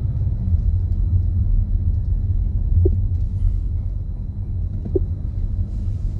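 A steady low rumble, with two brief faint squeaks about three and five seconds in.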